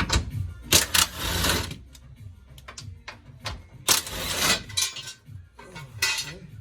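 Mechanical clicking and clattering, with three louder bursts of noise: about a second in, around four seconds, and near the end.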